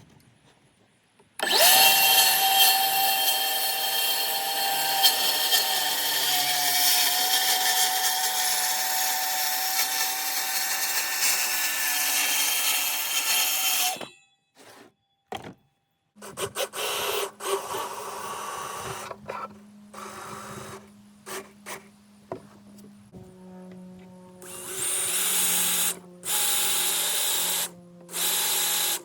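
Power tools working on a plywood platform: one tool runs for about twelve seconds and stops, then after a short pause come many short on-off bursts.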